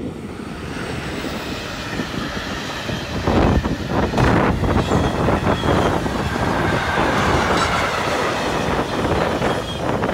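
Freight train of tank wagons hauled by an SBB electric locomotive passing close by at speed: a continuous rolling rumble of steel wheels with rapid clatter over the rails, growing louder about three and a half seconds in as the loaded wagons go by.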